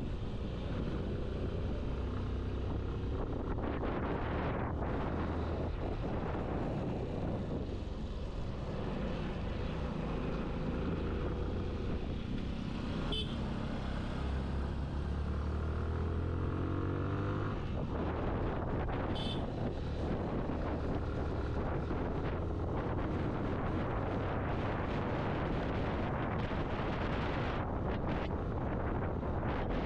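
Motorcycle engine running under way, heard from the rider's seat, the engine note climbing as the bike accelerates and dropping once about eighteen seconds in, with wind rush over the microphone.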